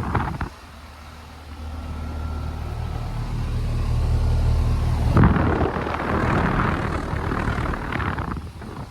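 Carrier Sentry 3.5-ton air-conditioner condenser running. Its Copeland scroll compressor gives a steady low hum, and a broad rush of fan air comes in loudly about five seconds in and fades near the end.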